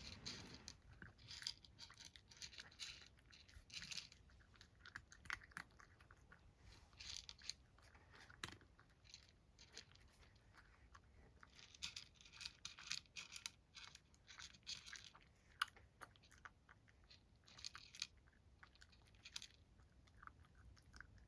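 A cat chewing its breakfast, faint runs of quick crisp bites that come in spells of a second or two, with short pauses between.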